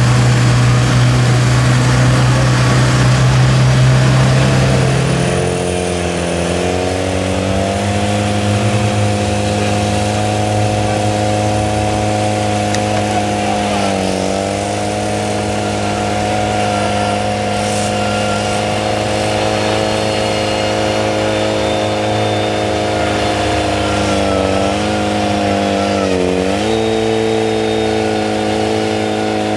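Off-road 4x4 truck engine running: a low steady drone, then from about five seconds in the engine revs up and is held at high, steady revs. The revs dip briefly a few times and waver up and down near the end.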